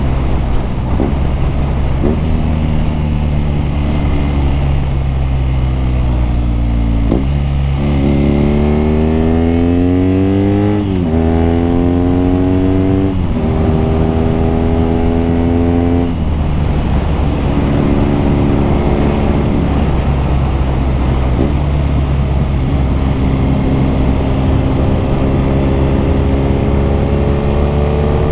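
BMW R nineT's boxer-twin engine and exhaust on the move. It holds steady, then pulls up through the gears around the middle, the pitch climbing and dropping back at each shift, settles lower, and starts climbing again near the end.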